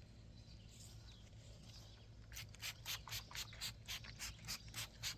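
Quick, even rubbing strokes across the face of a freshly sawn black walnut slab, about four a second, starting a couple of seconds in: sawdust being cleared off to show the grain.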